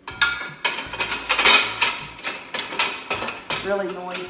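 Metal kitchen utensils clattering and clinking against one another as a handful of them is pushed into a utensil crock: a dense run of sharp clinks, really noisy.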